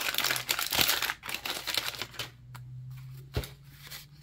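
Wax-paper wrapper of a 1991 Donruss baseball card pack crinkling and tearing open for about two seconds. It goes quieter after that, with one sharp click as the stack of cards is pulled out and handled.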